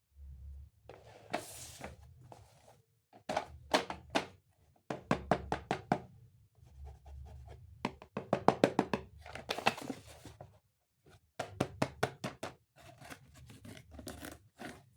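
Plastic toy train parts being handled: a string of knocks and clicks, some in quick rattling runs, with a short rustle about a second and a half in.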